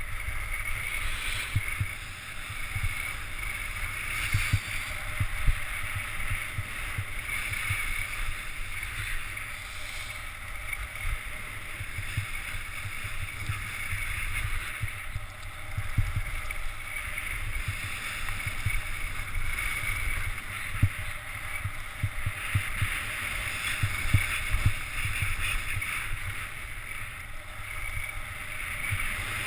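Wind rumbling and buffeting on the camera microphone during a fast downhill run, over a steady hiss of sliding on packed, groomed snow that swells and fades with the turns.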